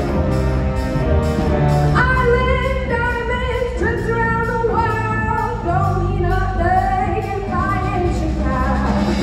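Instrumental music from a stage number with women singing over it. The singing comes in about two seconds in.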